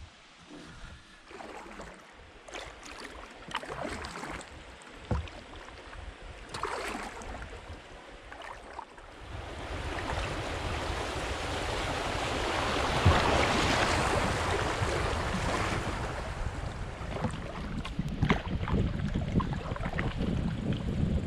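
Kayak paddle strokes splashing now and then, then the rush of water over a shallow rocky riffle builds from about nine seconds in, loudest about halfway through, with a low wind rumble on the microphone.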